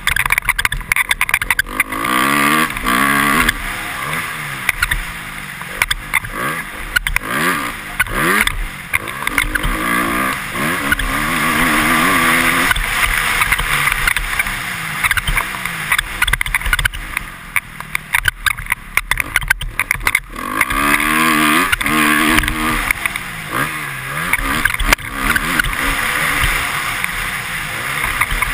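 2013 Honda CRF250R's four-stroke single-cylinder engine revving up and down again and again as it is ridden hard around a motocross track, easing off briefly about two-thirds of the way through. Wind rushes on the helmet-mounted microphone, and sharp clicks come over the bumps, which the rider puts down to his helmet visor squeaking.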